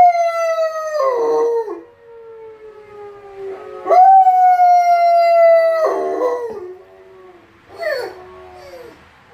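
A Lycan Shepherd dog howling to a tornado siren. Two long howls each hold a high note that slides slowly down and then breaks off, and a short cry follows near the end. Underneath, the distant siren holds one faint tone that slowly falls in pitch.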